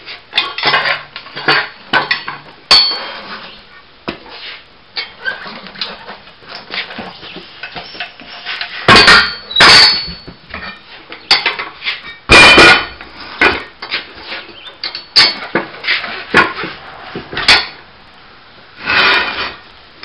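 Homemade steel bead breaker clanking and knocking as a car tire is shoved under it and its lever is forced down to break the tire's bead, with a few loud ringing metal bangs among irregular clanks and scuffs of the tire.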